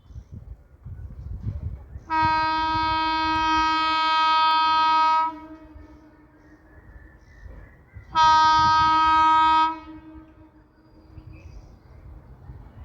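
Indian Railways train horn sounding two blasts at one steady pitch: a long one of about three seconds, then a shorter one of about a second and a half, with the low rumble of the train between them.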